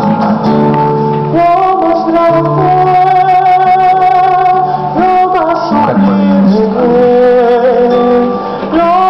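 A man sings a slow liturgical song in a sustained, wavering voice, accompanied by a nylon-string classical guitar. The voice comes in about a second and a half in, after a short instrumental opening.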